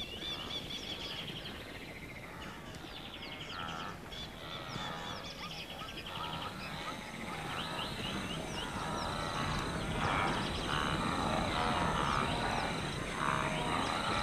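A herd of wildebeest calling, many overlapping calls that grow denser and louder from about halfway through. Birds trill high above them in the first few seconds.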